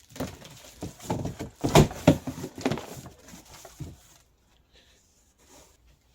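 Cardboard box being cut open along its tape and the flaps pulled apart: irregular scraping, rustling and knocks of cardboard, loudest about two seconds in and dying down after about four seconds.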